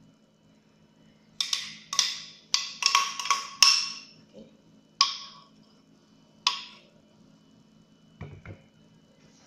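A kitchen utensil knocked hard against the rim of a container about nine times to shake off the cake's cream mixture, each a sharp clack with a brief ring. The knocks come in a quick run, then two single ones, and a couple of soft low thuds follow near the end.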